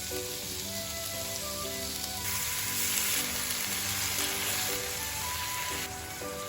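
Food sizzling in a frying pan, the hiss growing louder about two seconds in and easing near the end, under light background music with a simple melody.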